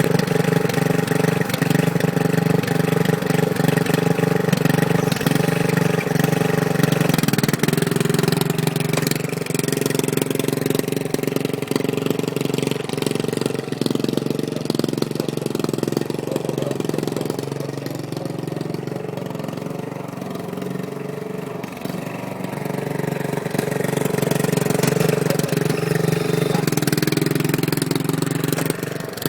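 John Deere riding lawn mower's engine running steadily, its pitch shifting now and then as the throttle and load change. It eases off for a few seconds past the middle, then picks up again.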